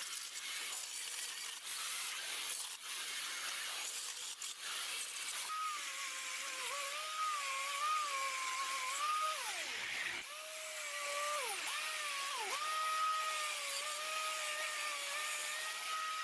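Angle grinder's thin cutting disc slicing into a steel ring, with a steady grinding hiss. From about a third of the way in, the motor's high whine is heard, sagging in pitch each time the disc is pressed into the metal. A little past halfway the whine drops away and then climbs straight back up.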